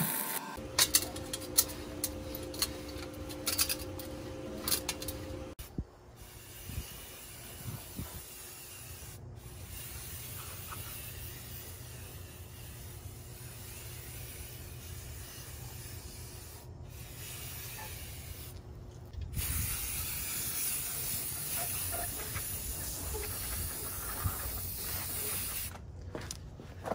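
Stick (arc) welding with a crackling, spitting arc for about the first five seconds, along with a steady hum. After that comes an even, steady hiss of background noise, broken by a few short gaps and louder for the last several seconds.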